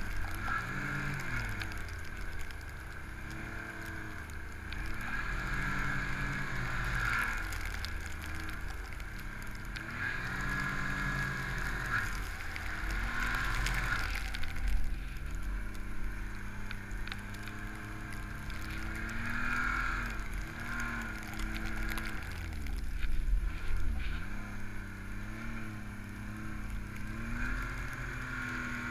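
Ski-Doo MXZ Renegade's 1200 4-TEC three-cylinder four-stroke engine working hard through deep powder, its pitch rising and falling again and again as the throttle is worked, with two deep drops about halfway and about four-fifths of the way in, over a steady high whine.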